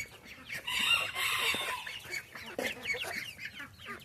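A flock of bantam chickens clucking, with one loud, harsh call lasting about a second near the start, then many short, quick clucks and chirps.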